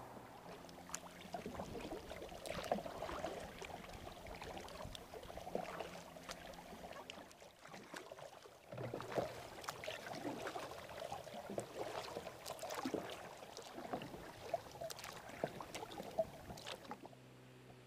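Kayak paddling: water splashing and lapping close to the microphone in irregular strokes, with small clicks and drips. A faint steady hum lies under the first several seconds.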